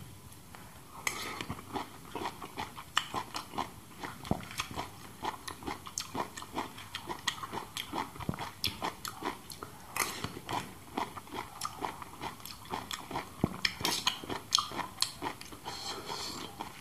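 Close-up chewing and lip-smacking of a man eating from a spoon, a rapid irregular run of short mouth clicks, several a second.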